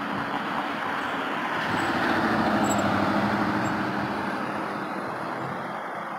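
Road traffic at an intersection: cars' tyre and engine noise, swelling as a car passes close by about two to three seconds in and then easing off.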